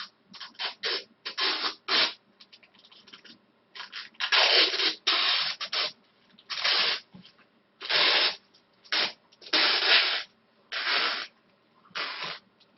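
Parcel tape being pulled off a wire coil: a series of rasping rips, most under a second, the longest about two seconds a little after the start.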